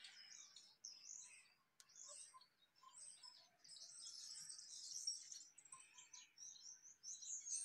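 Many small birds chirping and twittering in a faint, overlapping chorus of short high chirps, busiest around the middle.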